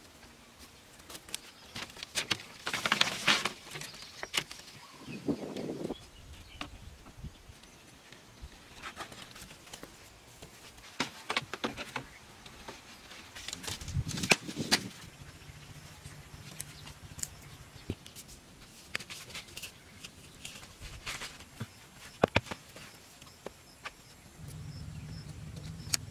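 Scattered rustling, scraping and sharp clicks of thin vine canes being bent and wound around the poles of a wooden frame, with a faint low hum at times.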